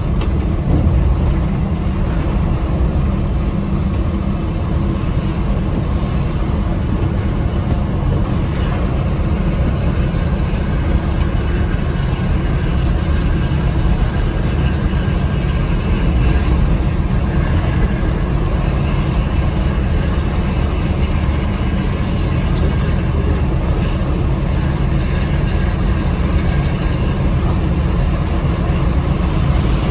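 Steady low rumble of a Mercedes-Benz OH 1626 NG coach's six-cylinder diesel engine and its tyre noise, heard inside the cabin while cruising at speed.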